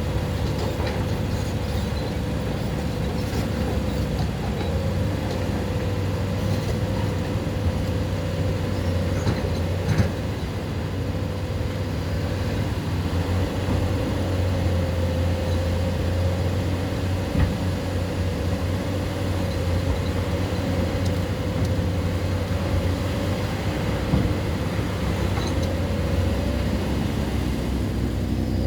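Excavator's diesel engine running steadily with a low drone, with a few sharp knocks scattered through it.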